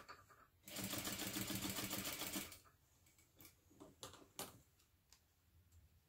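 Sewing machine running steadily for about two seconds as it top-stitches along the top of a fabric card slot, then stopping. A few light clicks and handling taps follow as the piece is taken out from under the presser foot and the threads are snipped.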